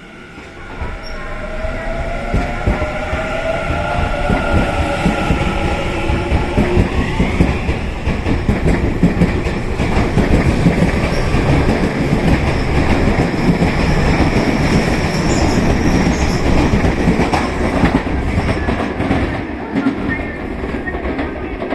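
Tobu 50090-series electric train pulling out and accelerating: the traction motors whine in several tones that rise in pitch over the first several seconds. The whine then gives way to a loud, steady rumble of wheels and carriages clattering over the rail joints as the train gathers speed.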